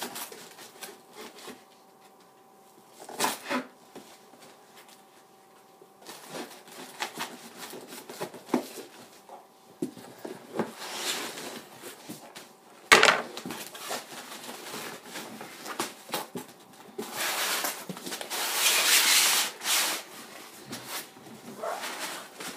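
A cardboard shipping box being cut open with a knife and handled: scraping and rustling of blade, tape and cardboard. There is a sharp knock a little past halfway, and a long rasping tear near the end.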